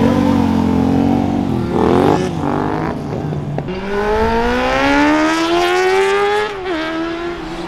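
Loud car engines and exhausts accelerating past. After short revs about two seconds in, one car pulls a long rising pitch through a gear, then drops in pitch at an upshift near the end.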